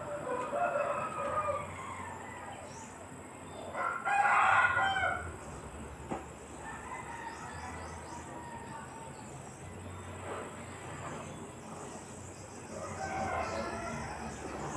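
Several calls from a bird in the background, the loudest and longest lasting about a second, starting about four seconds in, with fainter calls near the start and near the end.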